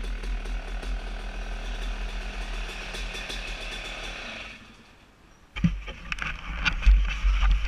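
Yamaha YZ250 two-stroke dirt bike engine running at low speed with an uneven crackle, then dying away about four and a half seconds in. A run of sharp clicks and knocks follows near the end.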